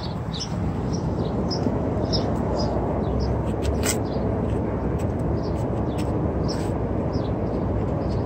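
Steady low outdoor rumble with small birds chirping over it again and again, and a single sharp click about four seconds in.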